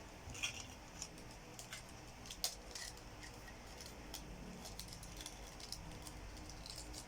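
Small plastic toy pieces being handled and fitted together: scattered light clicks and rattles, the sharpest about half a second in and again near two and a half seconds.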